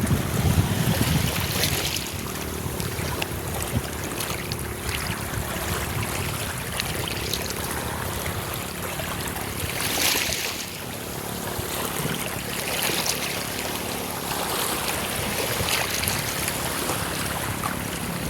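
Sea waves washing and lapping, with wind rumbling on the microphone in the first couple of seconds and a louder wash of water about ten seconds in.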